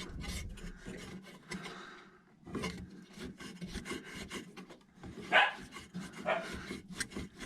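Rubbing and scraping with many small clicks and knocks as the speedometer and tachometer drive cables are handled and pulled through under a car's dashboard, with one louder clack about two-thirds of the way through.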